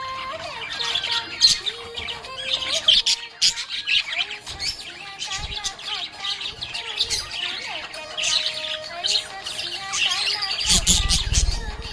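Budgerigars chirping in quick, overlapping high calls throughout, over background music. A brief low rumble comes near the end.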